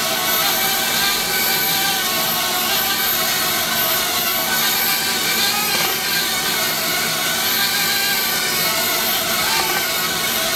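Small quadcopter drone's propellers buzzing steadily as it hovers, running without a battery on power sent wirelessly from the coil pad beneath it.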